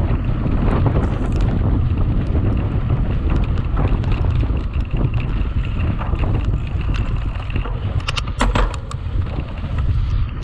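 Wind buffeting the microphone of a camera riding along on a mountain bike at race speed, over a steady rumble from the tyres and scattered clicks and rattles from the bike, with a short cluster of sharper rattles about eight seconds in.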